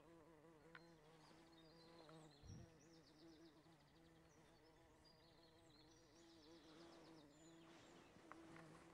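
Faint garden ambience: a flying insect buzzing with a steady, slightly wavering hum, and birds chirping in quick high trills in the background.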